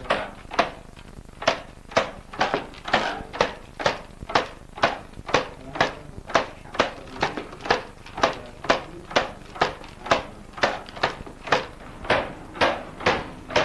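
Wool-carding bow: its string is struck with a wooden mallet about twice a second, twanging sharply as it fluffs loose dyed wool.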